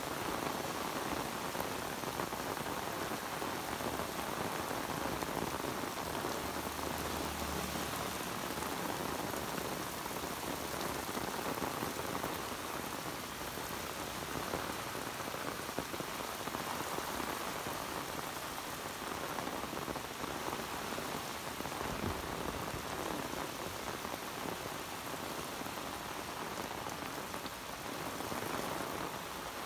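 Heavy rain pouring down steadily: a dense, even hiss of drops hitting grass, pavement and the road.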